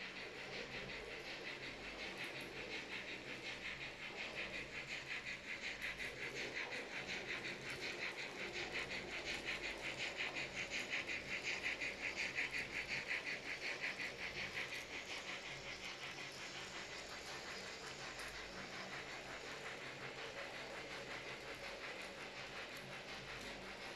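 Two Minitrix N-scale steam locomotives in double traction, a BR 45 and a BR 44, running with a goods train: the small electric motors and gears whirr with a fast, even ticking. It grows louder as the locomotives pass closest about halfway through, then gradually fades.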